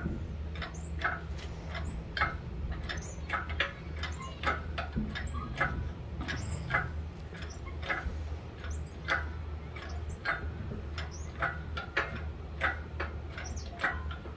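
Chain hoist clicking as it lifts a race car engine hanging from its chain, a run of short uneven clicks about two to three a second over a steady low hum.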